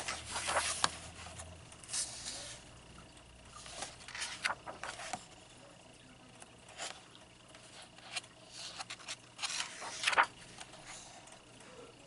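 Paper pages of a large softcover coloring book being turned and smoothed flat by hand: short rustling swishes and light taps every second or two. The loudest swish comes about ten seconds in.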